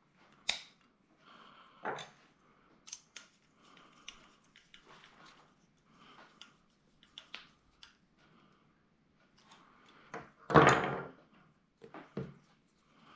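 Small tools and metal parts being handled at a workbench during RC truck assembly: scattered light clicks and knocks with soft rustling between them, and one louder clatter about ten and a half seconds in.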